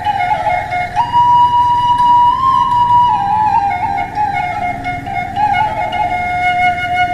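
Background music: a flute playing a slow melody of long held notes, stepping up in pitch about a second in and settling back down over the next few seconds.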